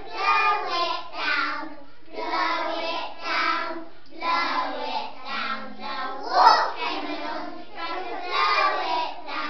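A group of young children singing together in unison, phrase by phrase, with a louder moment about six and a half seconds in.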